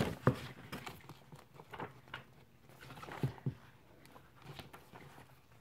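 Paperback book's paper pages rustling and flicking as they are leafed through, in short scattered bursts that are loudest at the start and die away near the end.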